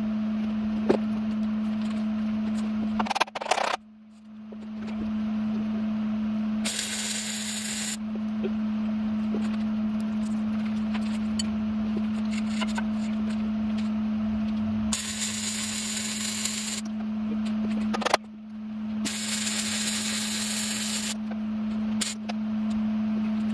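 Arc welding on a steel truck frame: three sizzling bursts of one to two seconds each, over a steady machine hum, with a couple of sharp clicks.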